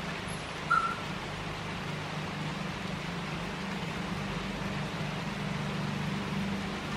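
Steady hiss of falling rain, with a low steady hum underneath and a brief high ping about a second in.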